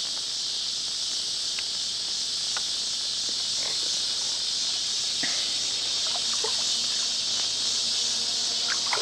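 Steady high-pitched chorus of evening insects, with a few faint short clicks and chirps scattered through it.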